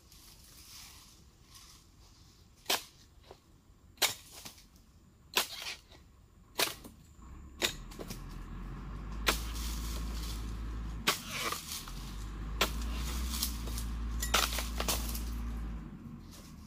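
Sharp chops of a dodos (pole-mounted palm chisel) striking oil palm frond bases, about nine strokes, one every second or so. From about halfway a low steady rumble runs under the strokes and fades near the end.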